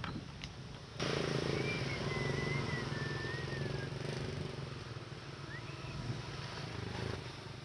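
Small motorbike engine running close by, starting abruptly about a second in and slowly fading toward the end, with a thin wavering high tone over it.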